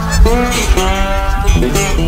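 Background music with a plucked guitar.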